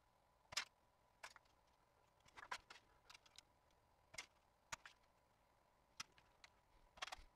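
Hand tin snips cutting thin sheet metal: a string of separate sharp clicks, one per snip, at uneven spacing, about nine in all.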